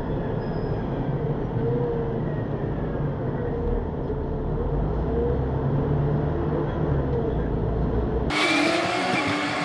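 Heavy vehicle on the move, with a deep, steady engine and road rumble. About eight seconds in it cuts abruptly to brighter, fuller traffic noise.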